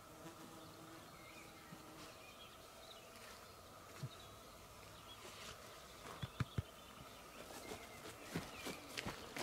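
Faint outdoor quiet with a few small high chirps, then a couple of sharp knocks about six seconds in and footsteps on dry, stony ground near the end as a man stands up and walks.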